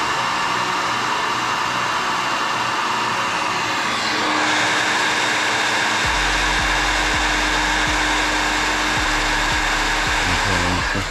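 Steady rush of air from a small electric motor, which cuts off near the end; a low hum joins in about halfway through.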